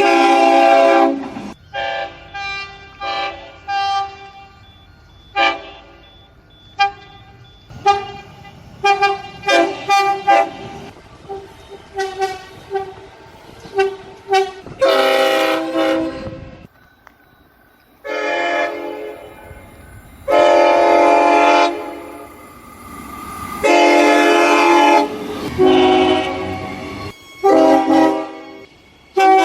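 Train horns blowing, several notes at once: a run of short toots in quick succession, then a brief lull, then several longer held blasts.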